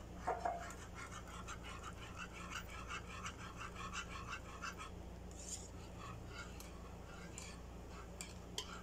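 Wire whisk stirring thick banana and cornstarch pudding in a small non-stick pan: irregular ticking of the wires against the pan and the thick mixture squelching, with a couple of louder knocks about half a second in, busiest in the first half. A low steady hum underneath.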